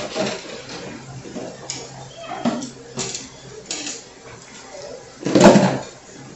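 Kitchen clatter: dishes and utensils knocking against each other in short, scattered clinks, with one loud bang about five seconds in.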